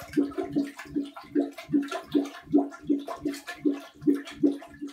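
Drain gurgling in short rising glugs, about three or four a second, as air is drawn through the toilet bowl's water while the bathtub drains. This is the sign of a drain line that cannot get air from its vent, typical of a clogged or missing plumbing vent.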